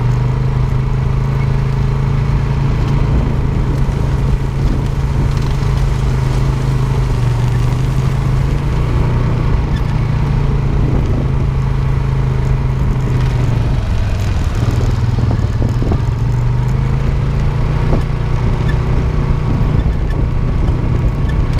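ATV engine running steadily under way, heard close up from the machine carrying the camera, easing off briefly about two-thirds of the way in before picking up again.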